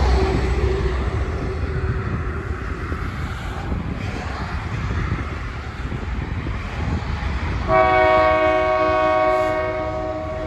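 Diesel freight locomotive rumbling as it approaches, then its multi-chime air horn sounds one long blast about three-quarters of the way in. The horn is the loudest sound.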